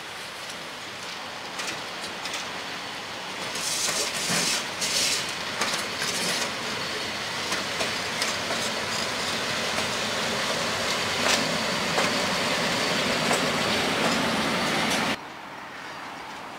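A lone EP07 electric locomotive rolls past close by. The noise of its running grows louder about four seconds in, with wheels clattering and clicking over rail joints and points. The sound cuts off abruptly about fifteen seconds in.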